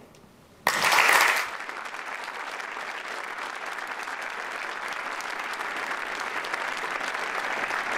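Large audience applauding, starting suddenly with a loud burst less than a second in, then settling into steady clapping.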